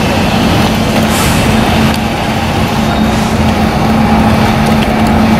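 An engine idling with a steady hum over loud, even background noise.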